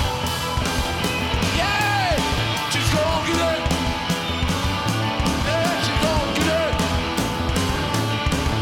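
Live rock band playing: electric guitar and drums with a steady beat, and short yelled vocal phrases over it.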